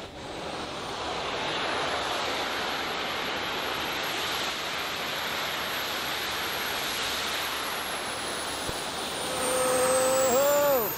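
Small jet engine mounted on an electric scooter, running as the scooter rides up: a steady rushing noise with a high whine. Near the end it gets louder, a lower tone rises briefly then falls and the sound drops away suddenly, as the engine runs out of fuel.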